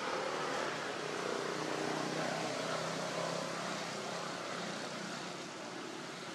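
Steady drone of a distant engine, its loudness easing slightly, over a constant hiss of outdoor background noise.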